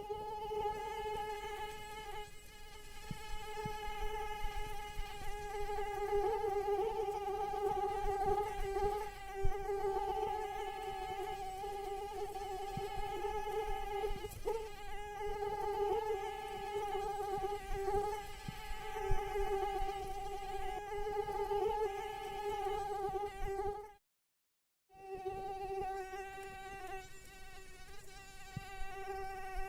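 Female mosquito's wings whining in flight: a steady high buzz with many overtones, wavering slightly in pitch, broken by about a second of silence near the end.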